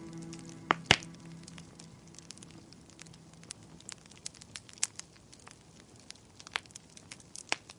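Wood fire crackling in a fireplace, with scattered sharp pops, the loudest a pair about a second in. The last held notes of soft music fade out over the first two seconds.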